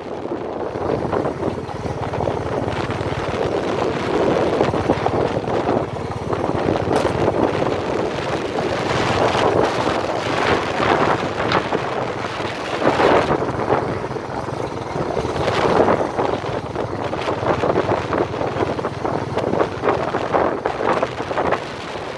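Wind rushing over the microphone, mixed with the running noise of a vehicle driving along a dirt track; a steady rushing noise that swells and eases.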